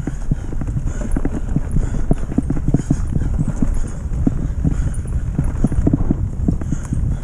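Mountain bike rattling and knocking over a bumpy dirt forest track, many irregular knocks over a low rumble of tyres and wind on the microphone.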